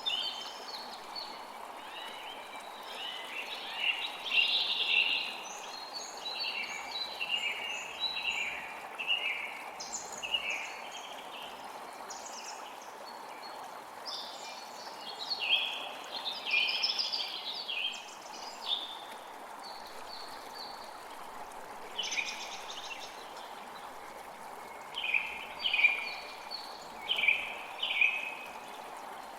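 A creek flows steadily with small songbirds singing over it in short, chirpy phrases that come and go throughout. The bird phrases are the loudest sounds and cluster around four, sixteen and twenty-six seconds in.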